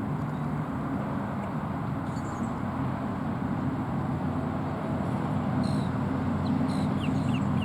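Steady low engine hum, as of a vehicle idling. Near the end come a few faint, short chirps that fall in pitch, from a bird.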